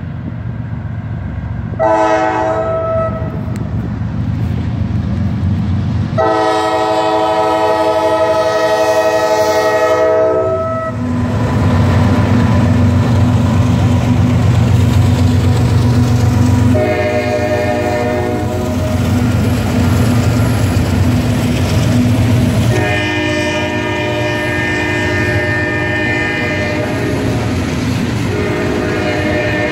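Norfolk Southern freight train's lead GE C40-9W locomotive sounding its horn for a grade crossing in four blasts: a short one about two seconds in, a long one, a short one, then a long one held to the end. Under the horn, the diesel locomotives rumble as they pass, and the wheels of the freight cars clack on the rails.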